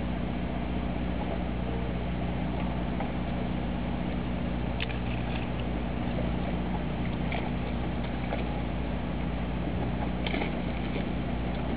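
Steady low hum of a boat's onboard machinery running, with a few faint short noises about five, seven and ten seconds in.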